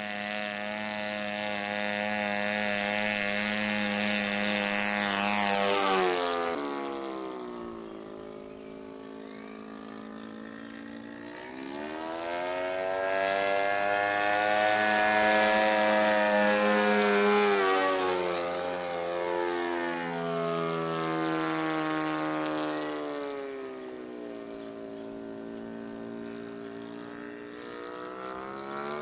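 Small propeller airplane's engine buzzing at steady high revs as it flies passes overhead. It swells and fades, and its pitch drops sharply as it goes by about six seconds in and twice more in the second half.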